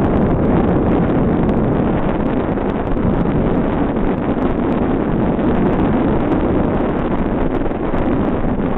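Loud, steady wind rushing over the camera microphone, driven by the speed of a bicycle descending a mountain road.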